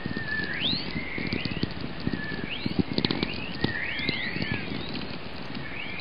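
Whistler-mode chorus from a VLF radio recording, played as audio: a series of strong, rapidly rising chirps climbing from about 2 to 4 kHz, roughly one a second, over a steady hiss with scattered crackling clicks. The rising tones resemble the twittering of birds. Chorus is generated deep in Earth's magnetosphere by energetic electrons injected during geomagnetic storms.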